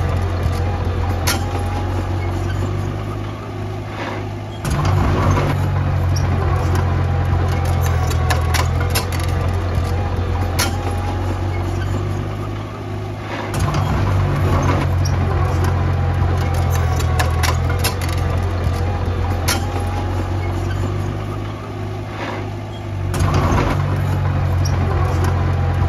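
Engine drone of miniature construction machines (bulldozer and dump truck), a steady low hum that steps up louder three times, about every nine seconds, with scattered sharp clicks over it.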